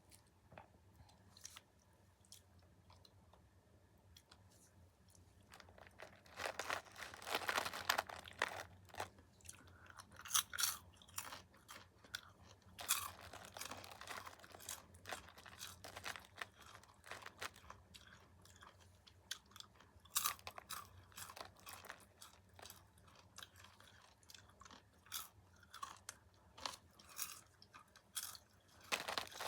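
Popcorn being crunched and chewed close to the microphone. After a quiet first few seconds, the crunching starts about six seconds in and comes in bursts of crisp crackles through the rest.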